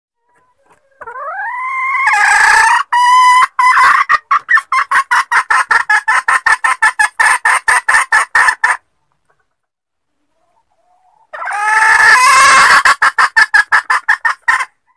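Female junglefowl lure call in two bouts. Each opens with a drawn-out rising note and breaks into a fast run of short clucking notes, about five a second.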